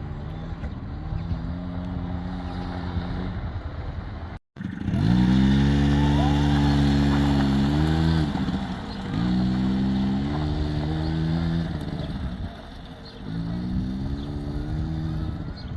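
Dirt bike engine revving up and easing off again and again, about four throttle bursts, the loudest just after a brief dropout about four and a half seconds in.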